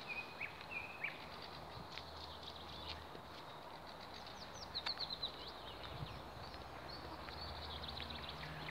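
Small birds singing faintly: a few short high notes in the first second, then a quick run of about five falling chirps about five seconds in, over a steady low hum.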